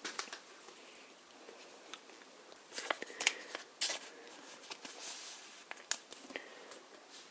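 Quiet handling noise: scattered short clicks and brief rustles of packaging, cards or the camera mount being moved about.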